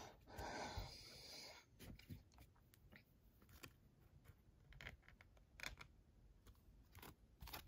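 Near silence with a few faint clicks and taps: plastic toploader card holders being handled and set down on a stack.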